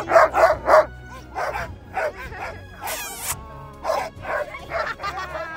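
Harnessed sled dogs barking and yipping in short, rapid bursts, with one high-pitched yelp about three seconds in.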